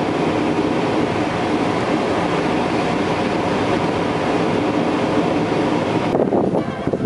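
Steady road and engine noise inside a car cruising on a highway, a continuous rumble of tyres on asphalt. About a second before the end it changes abruptly to a duller, choppier sound.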